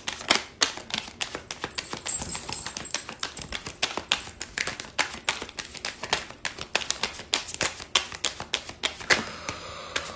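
A deck of tarot cards being shuffled by hand: a steady run of quick clicks as the cards slap together, several a second.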